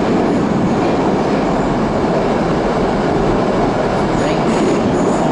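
Metro train running at speed through a tunnel, heard from inside the car: a loud, steady rumble and rush of wheels on rails.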